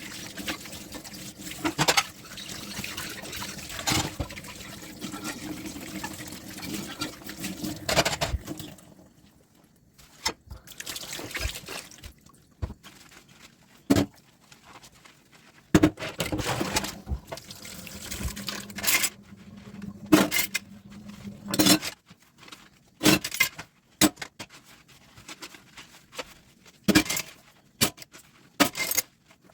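Dishes being washed by hand at a kitchen sink: tap water runs into the sink for the first eight seconds or so. The tap then goes off, and plates and utensils clink and knock against each other, with water running again for a few seconds in the middle.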